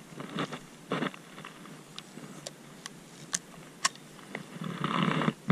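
Handling of a spinning rod and reel: a series of sharp, separate clicks and brief rustles, then a longer rustling scrape near the end.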